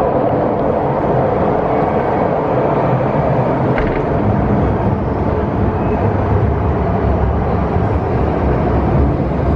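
MTR Tsuen Wan Line electric train running: a loud, steady rush of noise with a single sharp click about four seconds in, after which a deeper rumble builds.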